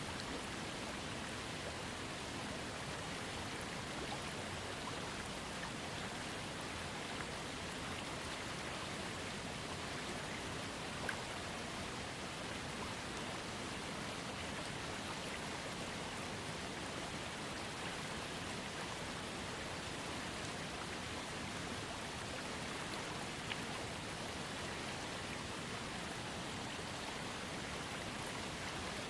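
Small waterfall fed by a trickling creek, a steady even rush of splashing water with a few faint drip-like ticks.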